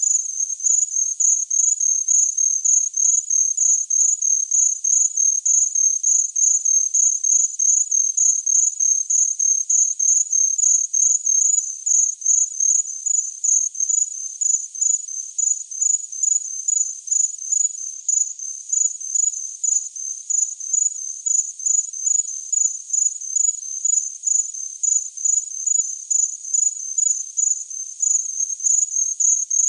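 A cricket chirping steadily: short, high-pitched chirps repeating evenly, about two or three a second.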